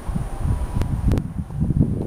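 Wind buffeting the camera microphone in irregular low gusts, with three sharp clicks around the middle.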